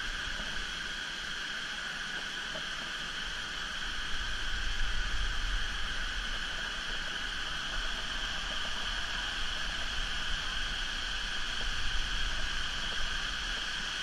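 Steady outdoor ambience of a jungle pool: a constant high insect drone over the hiss of water cascading, with low rumbling bumps from about four seconds in.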